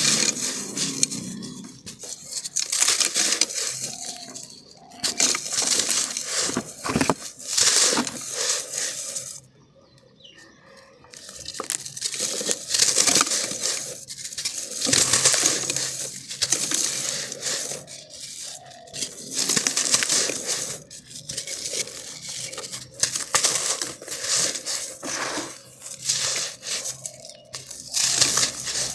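Dry, crunchy black sand being crushed and crumbled by hand in a clay pot: gritty crackling that comes in repeated waves, with a short pause about ten seconds in.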